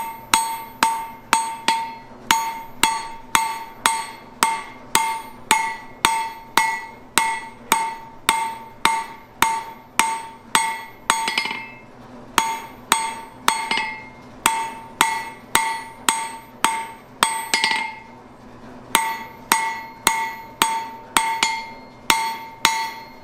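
Hand hammer striking red-hot round steel rod on an anvil, drawing it out: steady blows about two a second, each ringing with a clear metallic tone, with a brief pause about three quarters of the way through.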